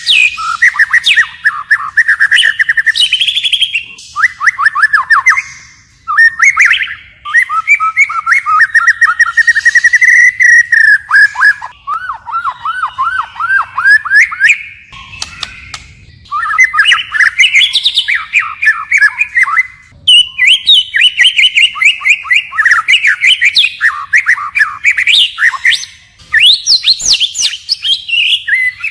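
White-rumped shama singing, switching from one phrase to the next: fast runs of rapidly repeated whistled notes, each phrase a few seconds long, with brief pauses between them.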